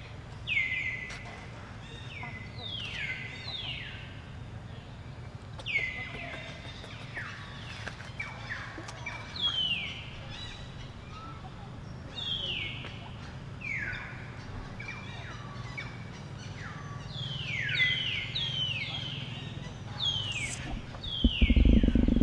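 Birds calling again and again, each call a clear whistle that slides down in pitch, over a steady low hum. Near the end a loud low rumble comes in.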